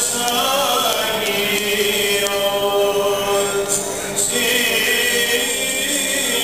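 Greek Orthodox Byzantine chanting: voices singing long, drawn-out notes that change pitch slowly, with a brief break about four seconds in.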